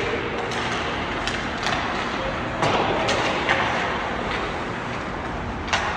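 Ice hockey game play in a rink: a steady wash of rink noise broken by several sharp knocks and clacks of sticks, puck or boards, a cluster of them in the middle and one more near the end.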